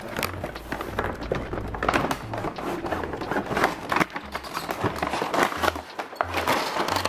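Clear plastic packaging crinkling and a cardboard toy box being handled and cut open with a blade, giving a run of crackles and scrapes, over background music.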